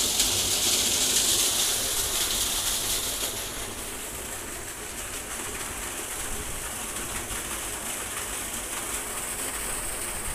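Rainwater pouring and splashing into an open farm well, from a pipe's jet and a muddy runoff stream, recharging the well: a steady gushing hiss. It is loud for the first three or four seconds, then carries on more faintly.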